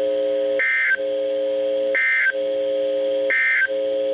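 Emergency Alert System end-of-message signal: three short bursts of high, chirping digital data tones, about a second apart. Under them runs a steady low droning tone that drops out during each burst.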